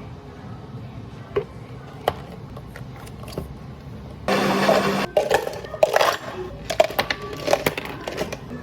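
Café drink-making sounds: a short machine whir with a low hum lasting under a second, then a run of clinks and knocks from cups and utensils being handled.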